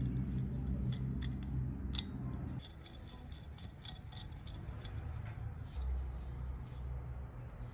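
Steel blades of hand sheep shears snipping open and shut, a quick run of sharp metallic clicks several times a second that stops after about four seconds. A low hum sits underneath for the first couple of seconds.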